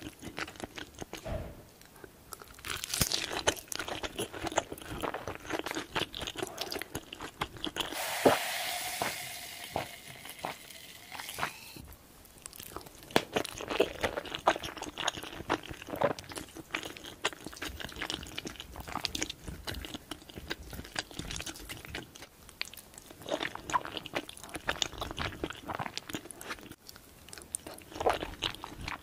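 Close-miked ASMR chewing of creamy Alfredo spaghetti: wet mouth sounds and many small clicks, with a longer, noisier sound lasting about four seconds around eight seconds in.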